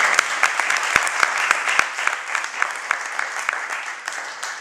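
A small audience applauding, dense clapping that tapers off toward the end.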